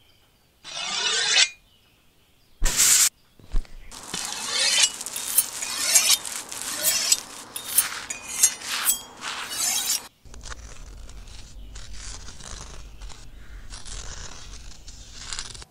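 A series of short scraping and clinking sounds, cut abruptly one after another. This is followed by a steady rough noise with a low rumble for the last five seconds or so.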